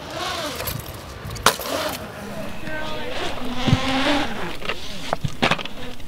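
Kick scooter rolling on a concrete skate park surface, its wheels whirring, with sharp clacks of the scooter hitting the concrete about a second and a half in, near the middle and near the end.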